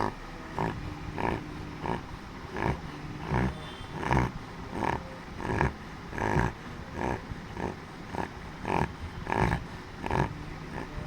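Labrador retriever snoring in its sleep: a rhythmic series of rough, nasal snorts repeating about three times every two seconds.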